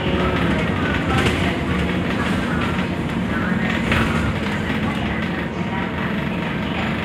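Cabin noise inside a moving Scania articulated bus: a steady drone with road rumble, and a few brief clattering rattles from the interior fittings about one and four seconds in.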